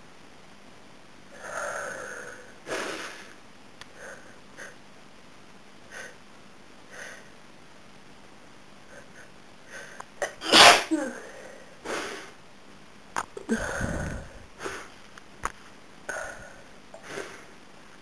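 A woman with a head cold sneezing: sniffles and catching breaths, then a loud sneeze a little past halfway and another a few seconds later, with more sniffing after.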